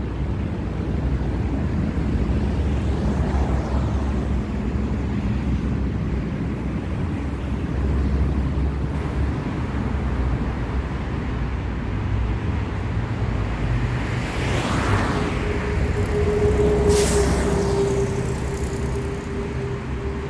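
City street traffic: a steady low rumble of passing vehicles. About three-quarters of the way in, a heavier vehicle draws close with a steady whine, and a brief sharp hiss sounds shortly after.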